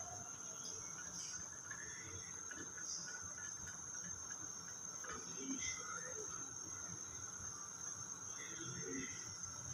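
Beef pieces being stirred in a thin marinade with a silicone spatula in an aluminium pressure cooker: soft, scattered wet scrapes and stirring sounds. Under them runs a steady high-pitched whine.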